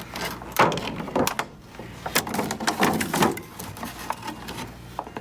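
Cardboard box and plastic figure packaging being handled and opened: irregular rustling and scraping with a string of light knocks and clicks.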